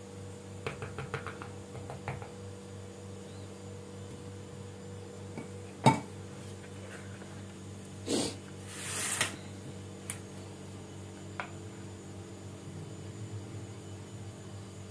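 Kitchen utensils being handled against dishes: a few light taps early on, one sharp clack about six seconds in, a short scrape or rustle around eight and nine seconds, and a couple of later clicks, over a low steady hum.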